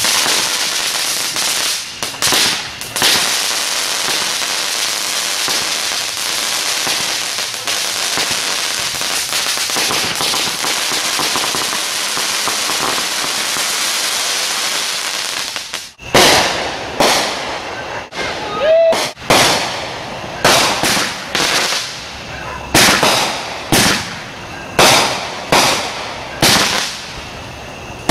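Consumer fireworks: a ground fountain hisses and crackles steadily, with a few loud pops, for about sixteen seconds, then stops suddenly. Then comes a rapid string of sharp bangs, more than one a second, each echoing briefly, with a short whistle among them.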